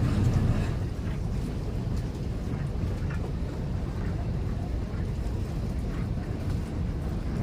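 Tour boat's engine running steadily, a continuous low rumble.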